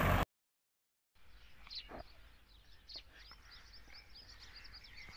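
A tractor engine running, cut off abruptly a moment in; after about a second of silence, quiet rural ambience with many faint chirps of small birds.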